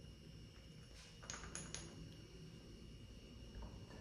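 A few faint light clicks of a small spoon against a spice jar and a glass as powdered spice is scooped and tipped in, grouped about a second and a half in, over a quiet room.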